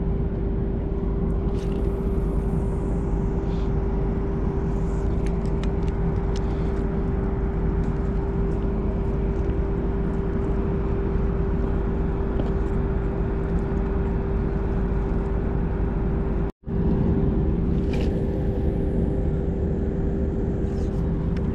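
Steady mechanical hum of ship machinery across the harbour: one constant droning tone over a low rumble. It cuts out for a moment about three-quarters of the way through.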